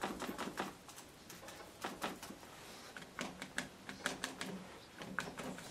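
Sponge dabbing acrylic paint onto paper: runs of quick, light taps in short clusters about a second apart.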